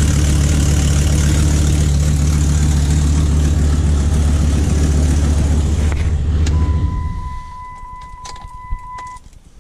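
Dodge Ram SRT-10's 8.3-litre V10 idling steadily through a Belanger aftermarket exhaust, then shut off about seven seconds in and dying away. A steady high electronic warning tone comes on just before the shutoff and lasts about three seconds, with a few light clicks near the end.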